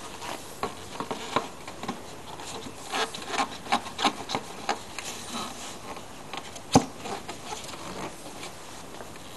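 Plastic engine cover being handled and fitted back over the engine: irregular clicks, knocks and rubbing of hard plastic, with one sharper knock about two-thirds of the way in.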